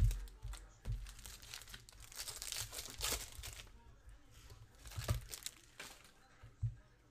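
Foil trading-card pack wrappers crinkling and rustling as packs are handled and torn open, with a few low thumps as packs are set down on the table.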